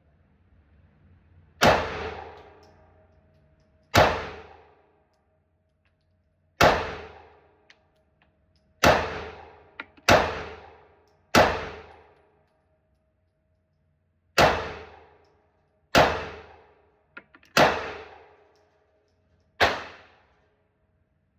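Ten pistol shots from a 9mm Smith & Wesson M&P Shield, fired one at a time at an uneven, unhurried pace, one every one to three seconds. Each shot is a sharp crack with a short ringing tail.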